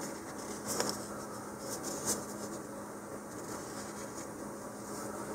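Faint handling sounds: a few soft clicks and scratchy rustles as a plastic bottle of Titebond wood glue is squeezed to lay a bead of glue inside a cardboard rocket body tube, over a steady low hum.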